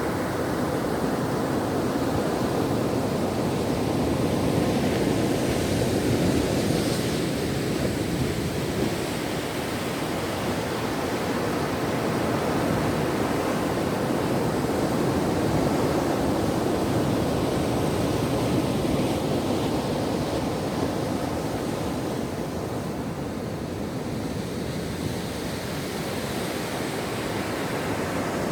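Ocean waves washing on a shore: a steady rushing surf that swells and eases slowly over several seconds at a time.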